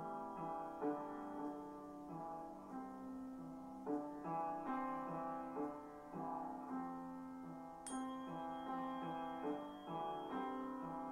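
Slow keyboard music in a piano-like tone, with held notes overlapping one another and changing about once a second.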